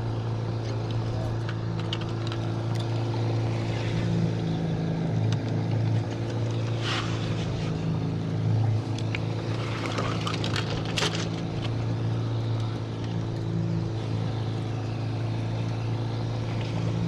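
A boat motor running steadily with a low, even hum. A hooked king salmon thrashing at the surface beside the boat adds a few brief splashes, about seven seconds in and again around ten to eleven seconds in.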